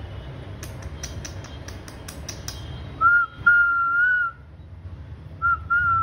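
A quick run of sharp clicks, about five a second, then two whistled phrases about two seconds apart. Each phrase is a short note followed by a longer steady note at the same pitch.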